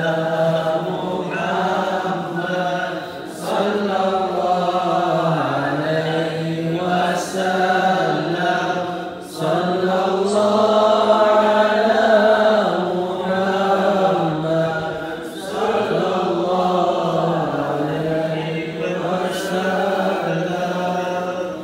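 A man's voice chanting Arabic verses in the melodic style of Quran recitation, long drawn-out phrases with short breaks for breath between them.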